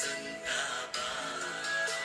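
Music with held, pitched instrumental notes.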